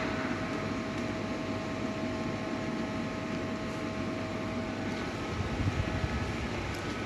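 Steady mechanical hum with a faint held tone that fades out about six seconds in.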